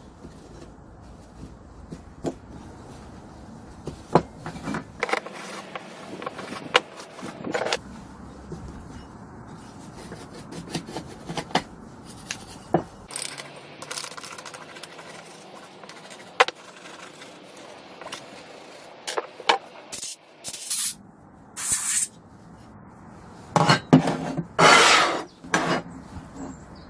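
Hand work on old electric drill parts: irregular clicks, taps and rubbing or scraping. Several louder scraping bursts come in the last few seconds.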